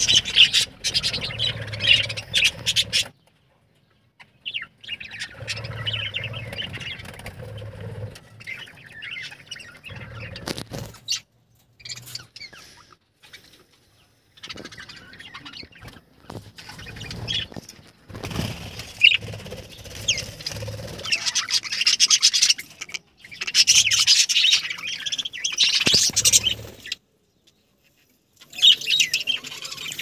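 Budgerigars chirping and chattering in bursts, with a low rumble underneath. The sound drops out completely four times, for a second or so each.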